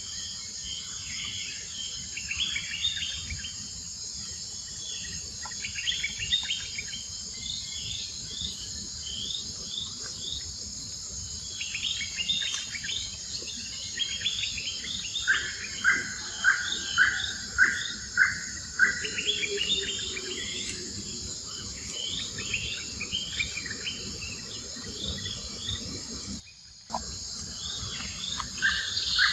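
A steady, high insect drone with many short bird chirps over it. In the middle comes a run of louder, short calls at about two a second. Near the end the sound drops out for a moment.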